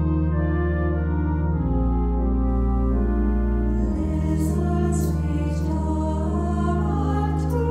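Organ playing sustained chords as the introduction to a choral anthem. About halfway through, a small choir comes in singing over the organ.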